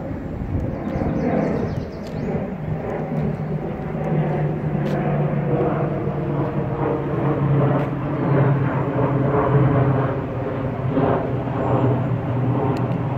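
Steady engine drone with a low hum and several pitched tones that shift slowly in pitch, with faint bird chirps about a second in.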